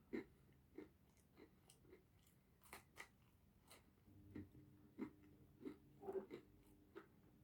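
Faint, close-up chewing of pizza: soft, wet mouth clicks and smacks at a steady pace of about one every half second or so.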